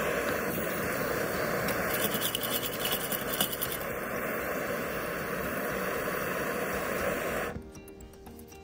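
Handheld butane blowtorch burning with a steady hiss as its flame plays on a steel bowl of screws; the hiss cuts off about seven and a half seconds in as the torch is shut off or pulled away.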